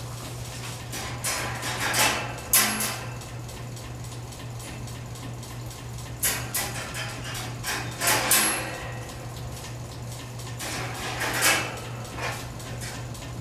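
Metal wire dog crate rattling and clinking several times in short bursts as its door is swung open and handled, over a steady low hum.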